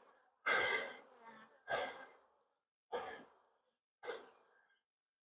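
A person breathing out in four short, breathy sighs about a second apart, each fading quickly.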